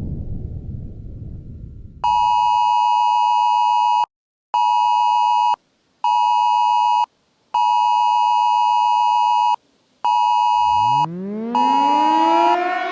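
A low rumble dies away over the first two seconds or so. A harsh electronic alert tone near 1 kHz then beeps in six pulses of one to two seconds each, with short gaps between them. Near the end a civil defense siren winds up over the last beep, rising steadily in pitch.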